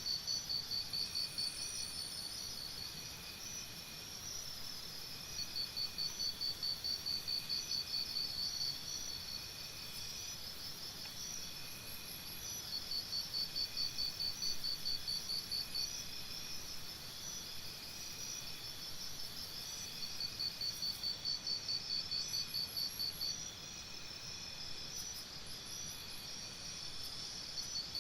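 Forest insects, cricket-like, trilling: a loud, rapidly pulsing high trill comes in bouts of about three seconds, four times over, above a steady bed of high chirping and a faint short note repeated about once a second.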